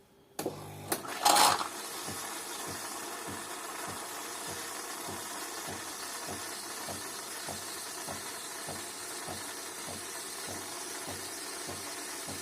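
DeLonghi coffee machine starting a brew, with a low hum and a loud short burst just after it starts, then running steadily with a regular pulsing about three times a second as it dispenses a large cold coffee.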